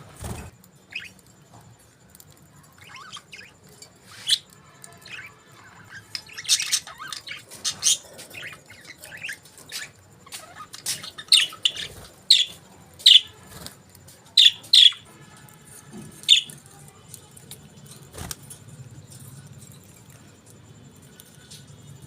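Budgerigars chirping: short, sharp, high chirps scattered irregularly, with the loudest run of calls about halfway through.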